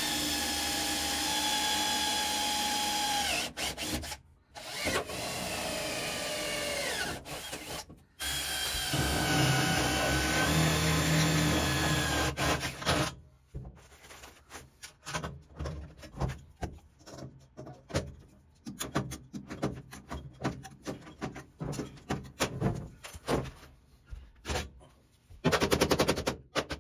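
Cordless drill boring rivet holes through a thin sheet-metal patch on a truck's cab floor, running in three bursts with its pitch dropping as each one winds down. It is followed by a long stretch of irregular sharp knocks, and near the end a quick, even series of hammer taps on the sheet-metal patch.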